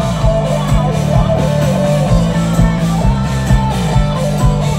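Loud live band music, an instrumental stretch with guitar over sustained bass and a steady drum beat of about two strokes a second, heard through the concert PA.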